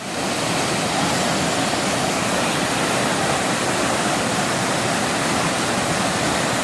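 Rushing water, a steady loud roar of a waterfall or fast stream.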